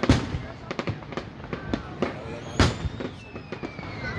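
Fireworks display: aerial shells bursting with loud booms, the loudest right at the start and about two and a half seconds in, with quicker crackling pops between.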